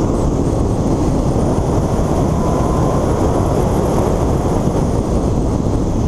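Car driving at speed, heard from a camera on its hood: steady wind buffeting on the microphone over engine and tyre rumble.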